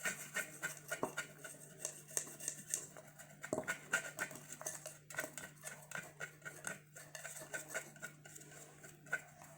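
Irregular light clicking and tapping of a small plastic craft container as glitter is shaken and tapped out, several clicks a second, over a faint steady low hum.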